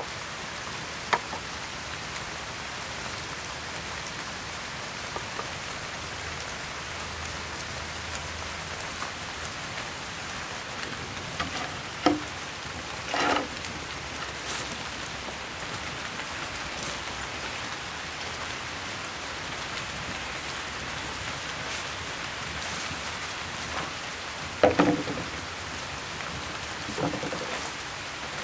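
Steady rain falling, with a few short knocks and thuds: one about a second in, a couple around the middle and a few more near the end.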